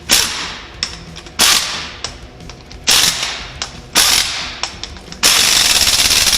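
Impact wrench fitted with a torque stick, run on wheel lug nuts: four short bursts that each die away, then a longer burst of steady rapid hammering near the end as a nut is driven tight.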